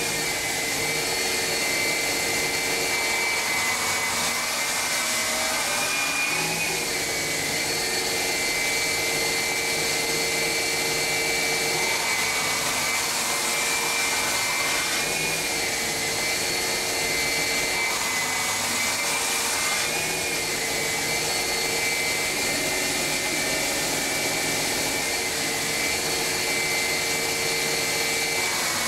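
Belt grinding machine for glass edges running steadily, a continuous motor-and-belt noise with a steady high whine; the sound changes slightly a few times, as when work is pressed to the belt and lifted.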